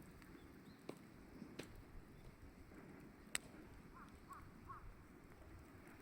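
Faint crackling of a burning wood fire, with scattered sharp clicks and one louder pop about halfway through. A bird calls three short notes in the background just after it.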